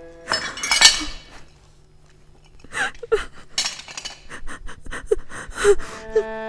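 A sudden crash with clinking, then a run of quick gasping, panting breaths.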